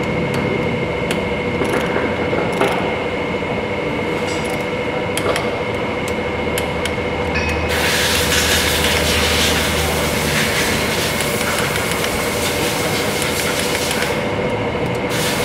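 Steady mechanical workshop noise with a constant hum, and a stronger hissing rush from about 8 to 14 seconds. Over it come a few light clicks from the wrench as the scooter's cylinder-head nuts are tightened.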